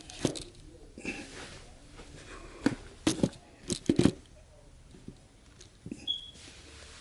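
A series of sharp knocks and clicks with some rustling, bunched together in the middle, followed by a brief high beep near the end.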